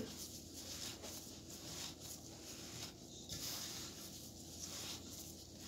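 Gloved hands kneading dry fine bulgur mixed with paste in a stainless steel bowl: a faint rustling and scraping of grains against the metal, swelling about once a second with each push of the hands.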